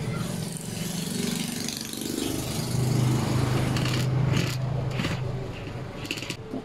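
Cordless impact driver running as it drives a screw into an aluminium heat sink, a steady motor hum, with a few sharp clicks and rattles about four to five seconds in.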